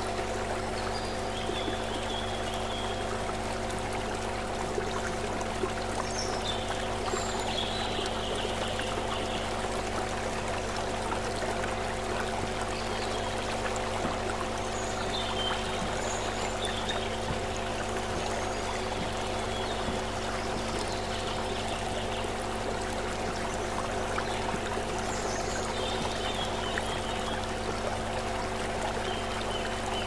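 Shallow stream flowing and trickling over rocks in a steady, even rush. Under it runs a steady low hum of several held tones, and short high chirps come every few seconds.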